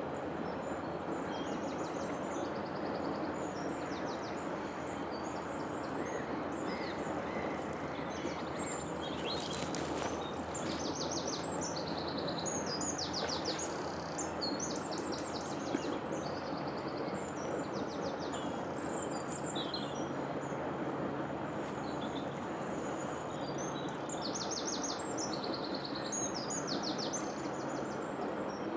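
Songbirds singing in short, rapidly repeated trills and chirps over a steady background rush of flowing river water.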